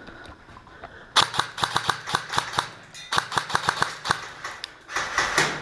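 Airsoft gun firing rapid strings of shots: a run of sharp cracks about a second in, a second run after a short pause, and a denser burst near the end.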